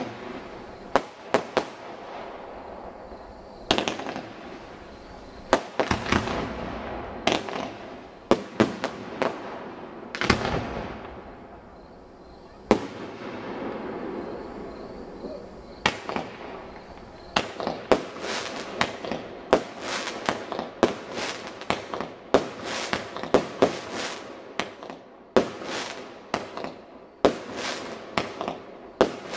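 Aerial fireworks display: a long run of sharp bangs from shells bursting overhead, each echoing away. The bangs come a few seconds apart at first, then much faster and denser, several a second, through the second half.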